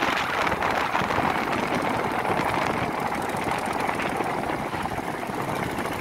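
Inboard engines of fishing trawlers running steadily as the boats motor past under way.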